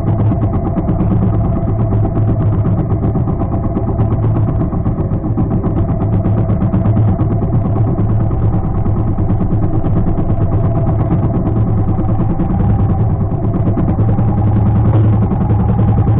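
Small outrigger fishing boat's engine running steadily at an even speed.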